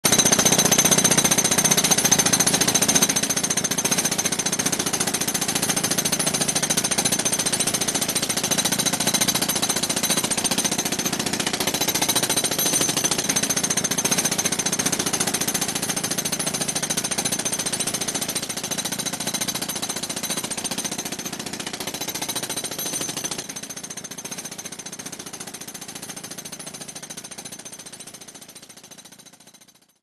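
Jackhammer hammering continuously into concrete, loud and unbroken, then fading out gradually over the last ten seconds or so.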